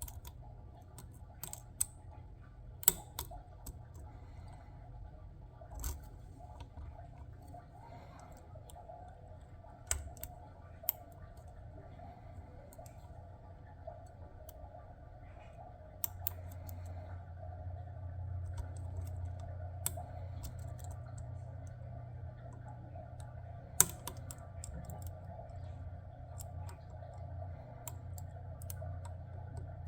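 Lock pick and tension wrench working the pins of a Master Lock 410 lockout padlock: scattered small clicks and metal ticks, spread irregularly. A steady low hum runs beneath and grows louder about halfway through.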